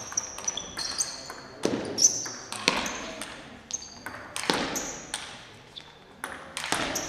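Table tennis rally: the ball clicking off the bats and the table in a long back-and-forth exchange, about two hits a second, each hit leaving a short high ping that rings on in the hall.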